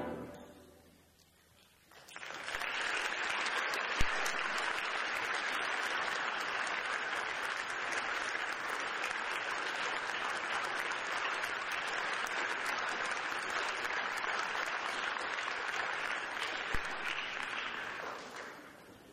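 Concert audience applauding after an orchestra piece: the last note dies away, and after about two seconds of hush steady applause breaks out and fades away near the end. A single sharp knock stands out about four seconds in.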